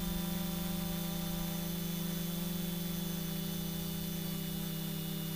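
A small quadcopter's electric motors and propellers, heard through its onboard GoPro, humming at a steady pitch while it flies low.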